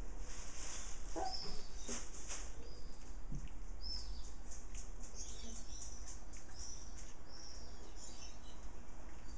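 Puppies giving short, high-pitched squeaks, a run of them in the middle, with light clicks and rustling as they move about.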